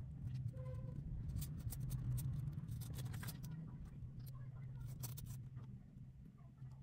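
Newborn kittens suckling at their mother cat: many small quick clicks and smacks and little rustles of movement over a steady low hum, with a brief squeak under a second in.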